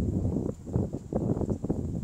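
Wind buffeting the microphone as a low, uneven rumble, with the walker's footsteps on flagstone paving showing as irregular soft knocks.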